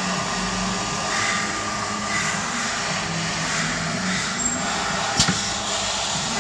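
Valve seat cutting machine running a seat cutter into a valve seat of a Jaguar X300 cylinder head: a steady motor hum with a gritty cutting hiss as metal chips are shaved off. There is a sharp click about five seconds in.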